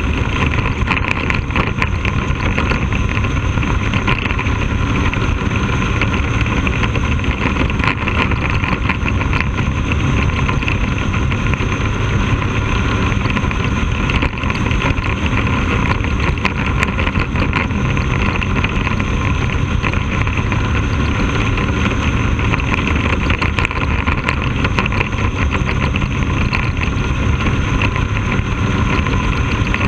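Bandolero race car's engine running hard and fairly steadily at lap speed, recorded by a camera on the car.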